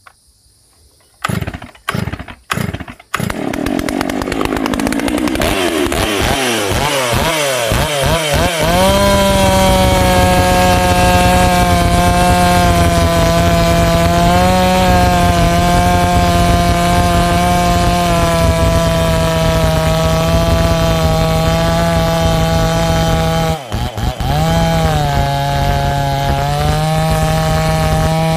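Stihl MS 660 two-stroke chainsaw, freshly rebuilt with a Meteor piston and Caber rings, being pull-started: a few short pulls, then it catches and runs with the revs rising and falling. It then holds steady high revs while cutting through a log, with a brief drop in revs near the end.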